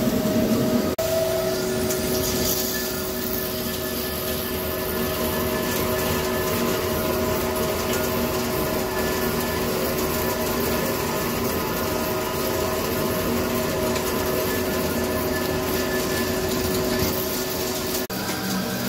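CNC vertical turning lathe cutting a large forged ring: a steady machine hum with a few held tones over the hiss of the cut and the swirling chips. The sound drops out briefly about a second in and again near the end.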